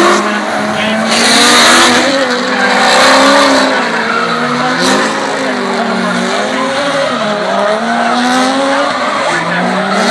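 Drift cars sliding through the corners, their engines revving up and down as the throttle is worked, with tyres squealing. The tyre noise is loudest about a second in.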